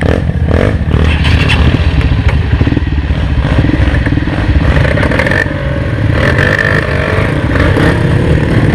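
Trail motorcycle engine running steadily under throttle as the bike is ridden.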